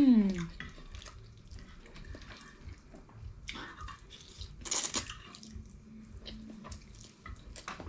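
Wet slurping and chewing of spaghetti eaten with chopsticks, with many small clicks and two louder slurps about three and a half and five seconds in. A short falling hummed voice sound opens it.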